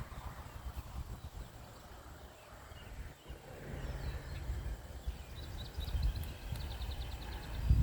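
Outdoor garden ambience: a bird gives rapid trilled runs of high chirps, clearest about five to seven seconds in. Underneath is an uneven low rumble that grows louder near the end.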